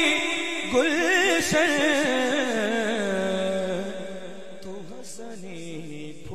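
A man singing a naat into a microphone, unaccompanied: a long melismatic phrase with wavering ornaments, settling about three seconds in onto a low held note that grows quieter and keeps sounding.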